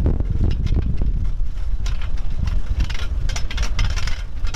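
Model T rail car rolling slowly along rusty rails: a steady low rumble with irregular clicks and clunks from its flanged wheels running over the worn track, heaviest about two to four seconds in.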